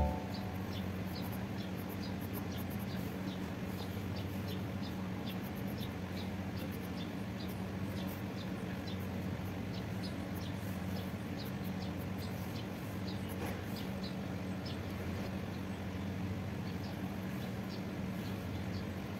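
Quiet room background: a steady low hum with faint, short high ticks, a few a second.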